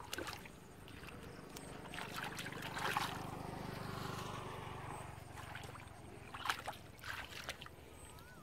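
Shallow muddy water splashing and sloshing in a few short bursts as a barefoot child wades and gropes in it by hand, over a low steady drone that swells and fades through the middle.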